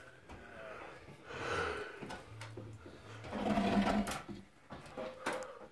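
Wooden boards scraping and rubbing against the attic hatch frame as they are slid up into the attic, with a few sharp knocks of wood on wood near the end.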